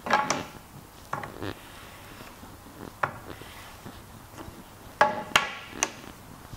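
A small hammer taps a Japanese wooden chamfer plane to set its blade for a finer cut: sharp knocks with a short ring, in small clusters, the loudest pair about five seconds in.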